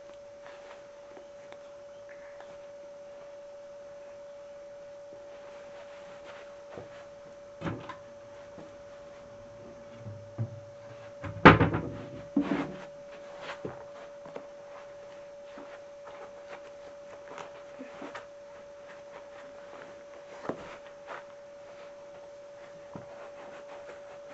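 Shoes being handled during a change from slippers into sneakers: scattered soft knocks and rustles, with the loudest thumps about halfway through. A steady, even hum sits under it all.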